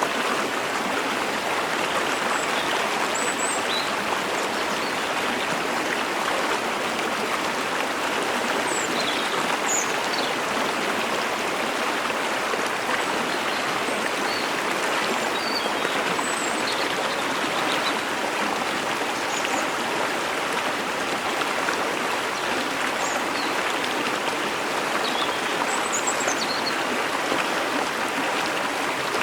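Mountain stream and waterfall water rushing steadily, with faint short high bird chirps every few seconds.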